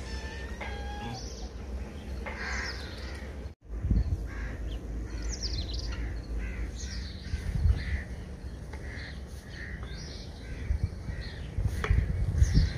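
Many short bird calls and chirps, some falling in pitch, with one harsher stacked call just after the start. Low rumbles sound on the microphone, loudest near the end.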